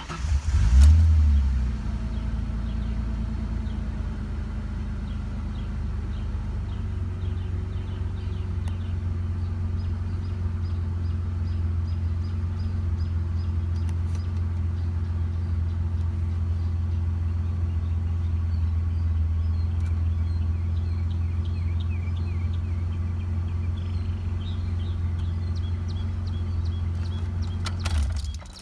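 Ford Explorer's 4.0 SOHC V6 catching and flaring briefly about a second in, then idling steadily, and stopping abruptly near the end. The truck has a failing fuel pump that makes only about 30 PSI running and will not hold pressure, leaving it hard to start and prone to cutting off at random.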